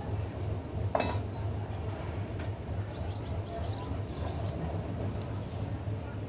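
Kitchen clatter while rotis are being made: one sharp clink with a short ringing about a second in, then a few faint light clicks, over a steady low hum.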